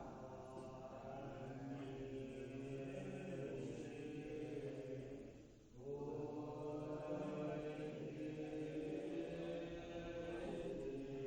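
Voices chanting a mantra in long, steady held tones. About five and a half seconds in the chant dips and breaks off briefly, then resumes.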